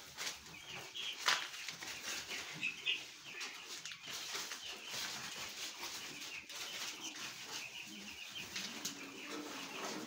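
Many young chicks peeping over the rustle of sawdust and a sack being shifted, with a couple of sharp clatters in the first few seconds.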